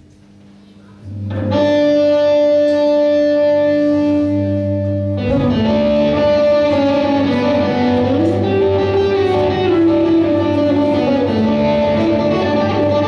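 A live rock band starts a song: after about a second of quiet, held electric guitar notes ring out, and about five seconds in the rest of the band comes in, making a fuller sound.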